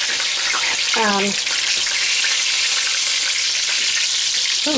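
Flour-dredged pork chops frying in hot oil in a pan, a steady sizzling hiss. A brief voice sound cuts in about a second in.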